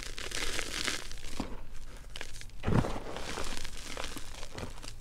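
Hands squeezing and crumbling powdery gym chalk mixed with baby powder: a dense, dry crunching and crackling. There is a short lull about two seconds in, and a heavier thump just before three seconds as a handful is pressed down.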